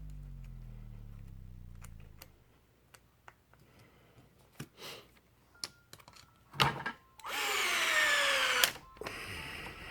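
Electric screwdriver driving screws into an RC truggy: the motor winds down in the first two seconds, a few clicks of the bit and parts follow, then a run of about a second and a half whose pitch sinks slightly as the screw tightens, cutting off suddenly.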